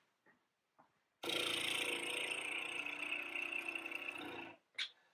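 A machine running steadily with a whirring mechanical sound, starting about a second in and cutting off suddenly after about three seconds, followed by a short click.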